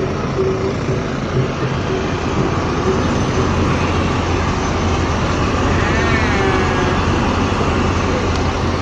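A bus engine running with a steady low hum, which firms up about three seconds in, amid vehicle and traffic noise.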